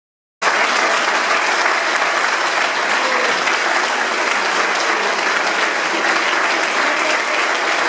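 Audience applauding steadily, many hands clapping at once; it cuts in suddenly about half a second in after a brief total silence.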